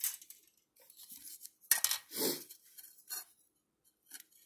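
White plastic model-kit parts trees and their plastic bags being handled: about five short, separate clatters and rustles, the sharpest right at the start.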